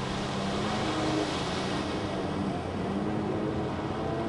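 Jet ski engine running at speed as the craft passes close by, with the rush of its spray. Loudest about a second in, then easing as it moves away.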